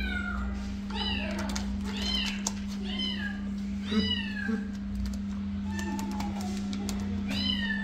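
A cat meowing about six times, roughly once a second, each call rising and then falling in pitch, over a steady low hum.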